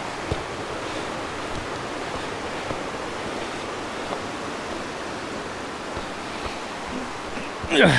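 Steady rush of the Gray Wolf River, a fast mountain river, with a brief sound sliding down in pitch just before the end.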